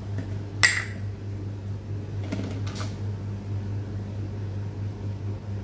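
Kitchen handling sounds: one sharp knock a little over half a second in, like a container or utensil set down on the counter, then a couple of softer knocks, over a steady low hum.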